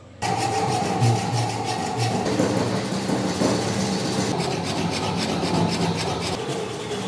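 Hand saw cutting through a wooden block clamped in a bench vise, with steady back-and-forth strokes of the teeth rasping through the wood.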